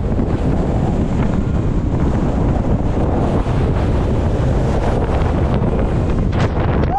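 Strong wind buffeting the microphone, a loud steady rumble.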